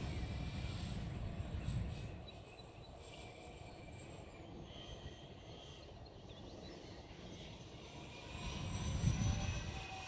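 Electric four-motor RC model C-130 Hercules flying past, its motors and propellers whining. It is loud for the first two seconds, fades, then swells again near the end as it comes by once more.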